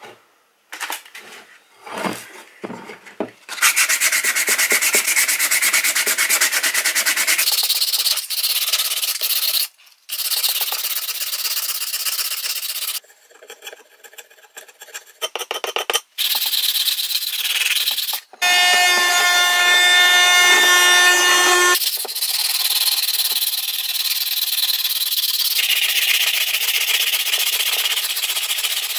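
A chisel blade scraping and sandpaper rubbing old yellow paint off a wooden hatchet handle, in quick rasping strokes with a few short pauses. For a few seconds past the middle a steady pitched hum runs underneath.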